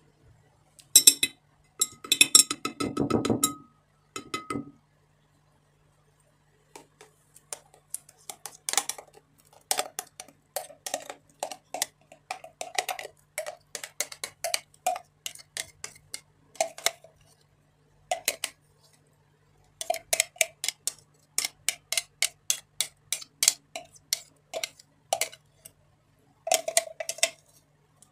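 Metal spoon scraping and tapping against a food chopper's bowl and a plate while scooping out chopped vegetable mash: a long run of quick clicks and scrapes with short pauses. A few seconds of louder clattering near the start as the chopper blade is handled.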